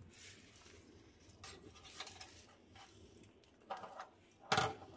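Faint clinks and taps of metal utensils at a small charcoal grill, then a couple of louder, sharper knocks near the end.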